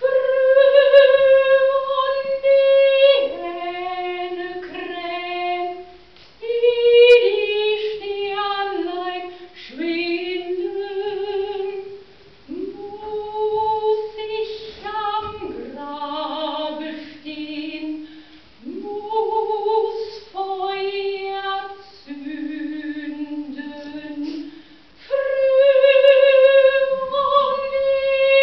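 A woman singing solo and unaccompanied, in phrases of long held notes separated by short breaths. It opens with a long high note and returns to one near the end.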